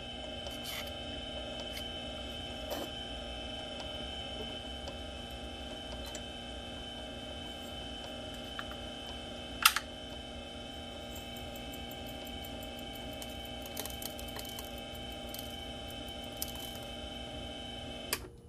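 Small metal lathe's motor running steadily, turning a ring blank on its mandrel, with a few light clicks and one sharp tap about ten seconds in. The motor cuts off near the end.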